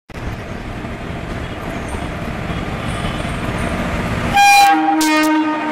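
Indian Railways WAG-5A electric locomotives hauling a freight train, a steady rumble on the track that grows slowly louder as they approach. About four and a half seconds in, a locomotive air horn sounds a loud blast, first on a higher pitch and then a lower one.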